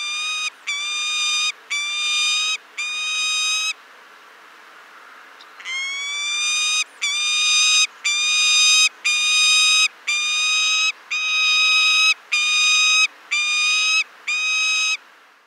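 Peregrine falcon giving its wailing call: a run of drawn-out, high, nasal calls, about one a second, each sliding up at the start and then held. There is a pause of about two seconds after the first four calls, then about ten more.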